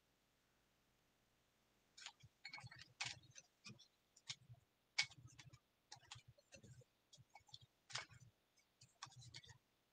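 Faint, irregular clicks and rustles of picture slips being rummaged in a bowl, starting about two seconds in.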